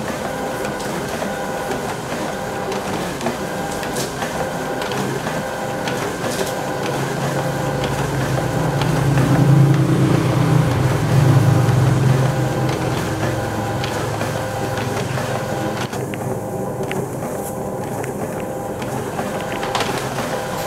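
HP Scanjet Enterprise Flow 7500 sheet-fed scanner running its document feeder, pulling answer sheets through one after another with a steady mechanical whir and an even, repeating pulse. A louder low rumble swells up around the middle and fades again.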